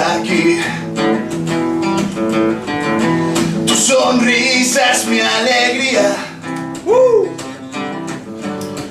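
Acoustic guitar strummed in a live acoustic song, with a man's voice singing over it, sliding up and back down about seven seconds in.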